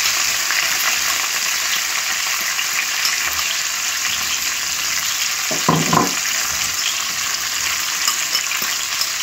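Sliced onion, spring onion, sweet peppers and carrots sizzling steadily in hot oil in a non-stick wok as more vegetables are tipped in. A brief pitched sound comes a little over halfway through.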